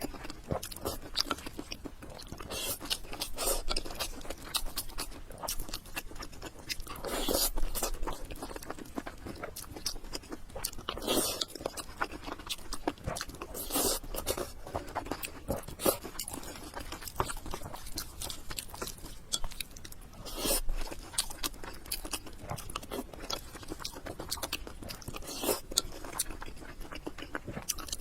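Close-miked mouth eating sounds: steady chewing with crunching and wet mouth clicks, with louder bites or mouthfuls every few seconds.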